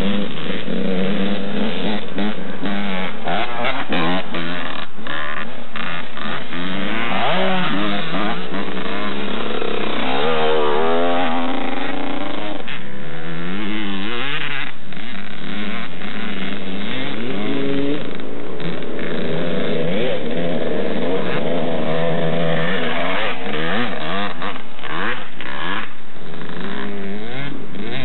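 Several two-stroke dirt bike engines, 1990 Kawasaki KX125s, revving hard and backing off, their pitch rising and falling again and again as the bikes ride the rough course.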